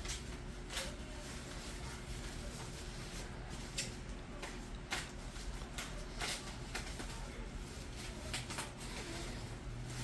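Packaging being handled during an unboxing: scattered rustles and light taps of cardboard boxes and plastic, irregular through the whole stretch.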